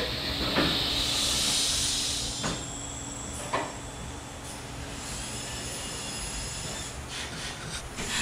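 Compressed air hissing loudly for about two seconds, then fading, with a few short knocks in between: shop air at work on a wheel and tire.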